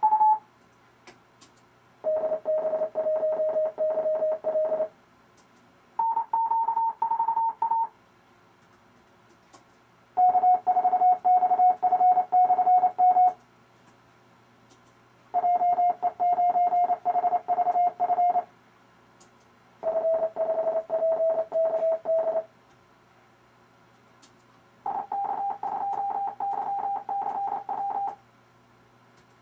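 Computer-generated Morse code tones from the RufzXP practice program, sending amateur radio callsigns one at a time: six short keyed groups of about two to three seconds each, with pauses of a second or two between them. Each callsign is sent at a slightly different pitch, and faint clicks fall in some of the pauses.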